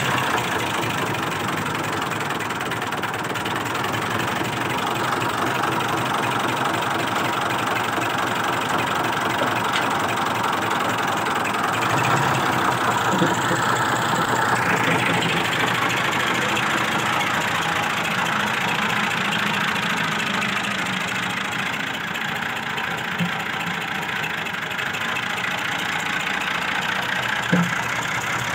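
Massey Ferguson 135 tractor engine running steadily just after starting, with a knocking clatter. About halfway through the engine note rises and stays higher.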